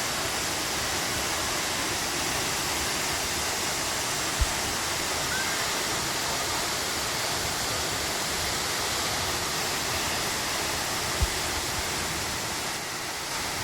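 Waterfall's falling water, a steady rush of noise, broken by two short low thumps about four and eleven seconds in.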